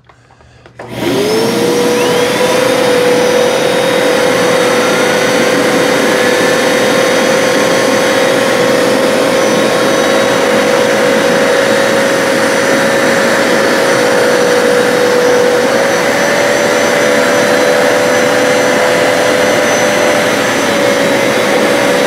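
Hoover PowerDash Pet and Power Scrub XL carpet cleaners switched on about a second in. Their suction motors whine up to speed, then run steadily while the machines wash the carpet.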